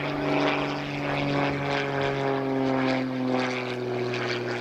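Propeller airplane flying overhead, a steady engine drone whose pitch slowly falls as it passes.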